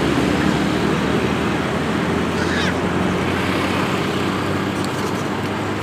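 Motorcycle on the move: a steady engine drone under a wash of wind and road noise, with one brief high squeak about two and a half seconds in.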